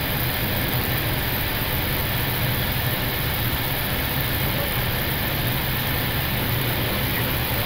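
Steady flight-deck noise of an Airbus A321neo on final approach with landing gear and full flaps down: a constant rush of airflow over the airframe with a low hum underneath.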